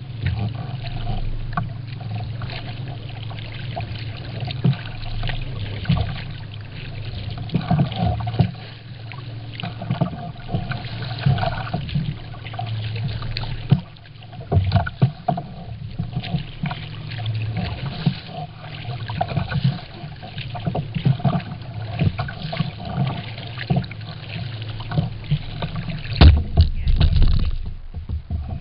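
Kayak paddle strokes: water splashing and dripping off the blades, with irregular knocks of the paddle against the hull over a steady low rumble of wind and water. A few louder knocks come near the end.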